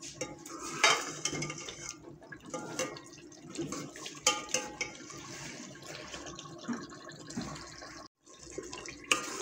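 Metal ladle stirring and scraping chicken curry in a metal pot, with the masala sizzling and bubbling as the chicken is fried down (bhuna) before water is added. The sound drops out briefly near the end.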